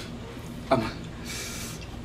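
A short vocal sound from a man about two-thirds of a second in, then a brief hiss, over a low steady hum.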